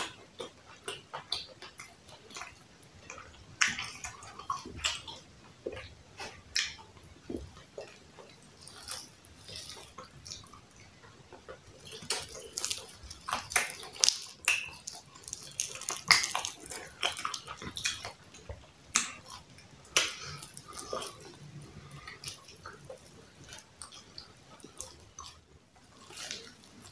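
Roast turkey meat being torn apart by hand and chewed close up, with irregular wet smacks and clicks.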